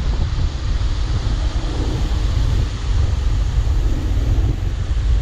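Motorcycle riding through a flooded street, heard mostly as heavy wind buffeting on the bike-mounted microphone. Under it run the engine's faint hum and the hiss of tyres through shallow water.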